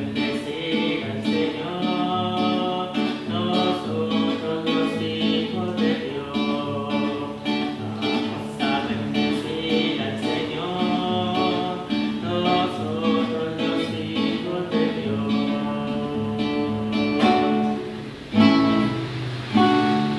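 Acoustic guitar strummed in a corrido rhythm in D major, with a man singing along. Near the end come a few louder accented strums as the song closes.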